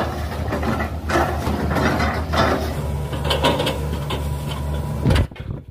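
Hitachi tracked excavator's diesel engine running with a steady low hum, with a few knocks. The engine sound stops abruptly about five seconds in.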